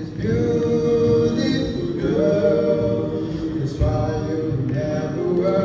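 Male a cappella group of eight voices singing in harmony, with no instruments. The chords are held in phrases of about two seconds, with short breaks between them.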